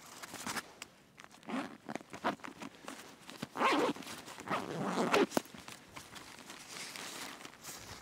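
Outdoor gear being handled and unpacked: a bag's fabric rustling and scraping in irregular bursts, with knocks and shuffling steps on stony ground. The loudest bursts come about halfway through.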